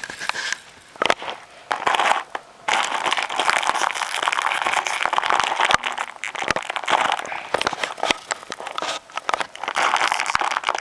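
Clear plastic packaging bag crinkling as hands handle it and pick at its seal: a few crackles at first, turning dense and continuous from about three seconds in.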